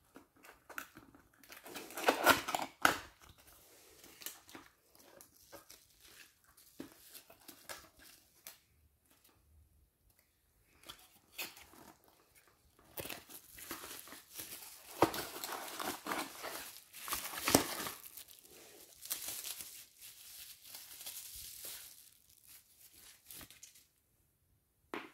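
Cardboard packaging being handled and opened and bubble wrap crinkling and rustling as a flashlight is unwrapped, with scattered clicks and scrapes. A loud burst of rustling about two seconds in, then a long, busier stretch of crinkling from about halfway through until shortly before the end.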